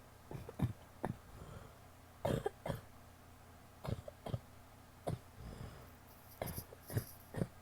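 A woman's wet, phlegmy coughs, coming in short bouts of one to three coughs again and again.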